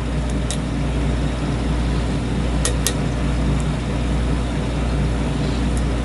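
A few faint, sharp clicks of a lock pick working the pins of a pin-tumbler lock, two of them close together about halfway through. Under them runs a steady low hum.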